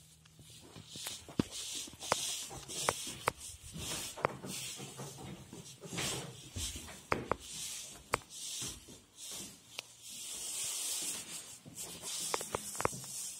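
Handling noise from a handheld camera carried by someone walking: repeated rubbing swishes, with irregular sharp clicks of footsteps and knocks on hard floors.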